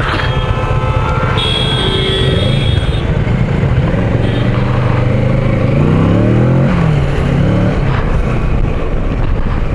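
Motorcycle engine running under way with steady wind rush on the microphone; the engine pitch climbs for a couple of seconds as it accelerates, then drops back about two-thirds of the way through.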